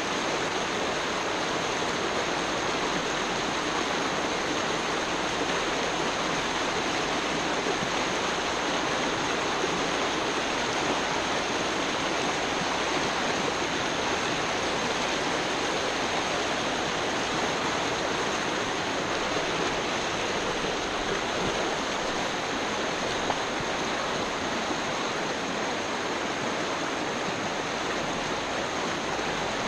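Clark Fork River running fast and shallow over rocks, a steady rush of water with no let-up.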